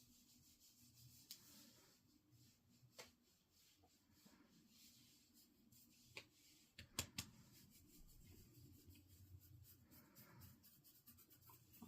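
Near silence with faint rubbing and a few soft scattered clicks.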